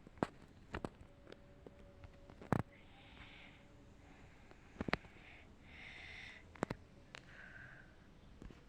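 Sniffling: a few short breathy sniffs. They come among several sharp clicks or taps, the loudest about two and a half seconds in.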